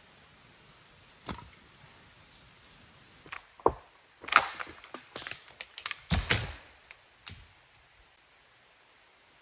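Firewood being prepared by hand: a series of sharp wooden knocks and cracks, scattered at first, then bunched together in the middle, then one last knock.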